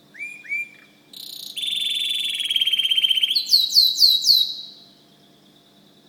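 White domestic canary singing one song phrase: two short rising notes, a long rapid trill, then a few quick downward-sweeping notes, stopping about five seconds in.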